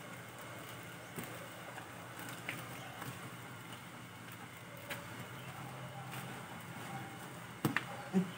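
Hands and a sponge rubbing through a dog's wet, lathered coat, soft and faint over a steady low background hum, with a couple of sharp knocks near the end.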